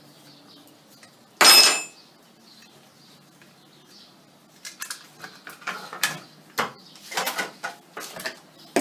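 Handling noise from an electric chainsaw and tools on a workbench: one loud metallic clank about a second and a half in, then a run of small clicks and knocks from about four and a half seconds on. The saw's motor is not yet running.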